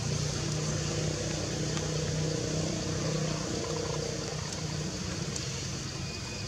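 A motor vehicle engine droning steadily, easing off about halfway through, over a constant hiss.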